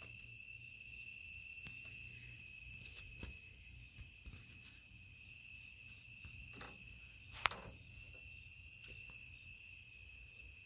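Crickets chirping steadily in a continuous high-pitched chorus over a low hum, with a single sharp click about seven and a half seconds in.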